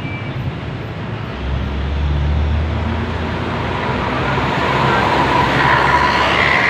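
Road traffic passing close by: a heavy vehicle's low engine rumble comes in about a second and a half in, then engine and tyre noise build up louder toward the end as another vehicle approaches.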